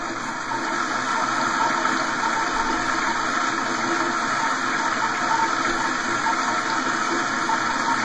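Pressure-assist toilet with a steady rush of water, even in level with no break.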